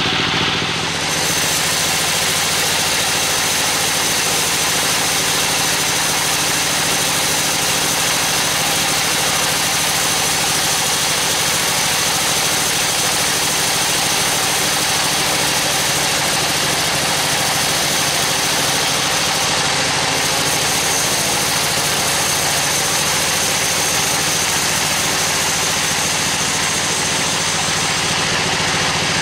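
Band sawmill running and cutting lengthwise through a teak log: a steady motor hum under the even hiss of the blade in the wood.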